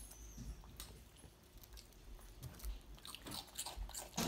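A child chewing and biting into a sandwich: faint wet chewing with small crunchy clicks, getting busier near the end.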